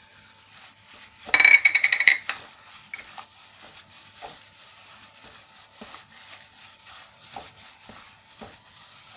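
A plastic-bagged hand mixing raw chicken pieces with ginger-garlic paste in a cut-glass bowl: soft rustling of plastic and wet meat with scattered small clicks against the glass. A brief, loud scraping clink comes about a second and a half in.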